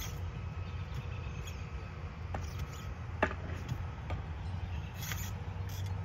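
Compact tracked mini skid steer's engine idling low and steady, with scattered faint clicks and scrapes from a hand post-hole digger working loose dirt and one sharper knock about three seconds in.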